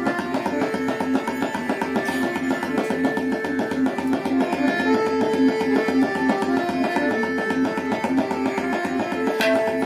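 Tabla solo in quick, dense strokes meant to evoke Shiva's damaru and conch, over a repeating lehra melody of held notes.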